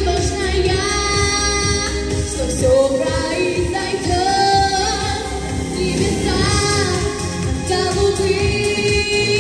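Young female singer performing a pop song into a handheld microphone over a backing track with a steady beat. She holds long notes, some with vibrato.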